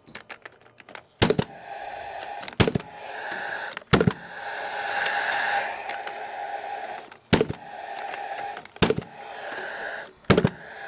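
Nail gun firing six times, one shot about every second and a half with a pause in the middle, driving nails through steel joist hangers into an LVL beam. A few light clicks come just before the first shot.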